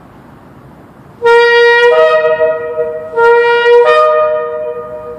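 Two Yemenite shofars blown together, starting about a second in: a lower horn holds a long, loud note and a higher one joins it about half a second later. Both break off and sound again in a second blast that fades away, echoing in a parking structure.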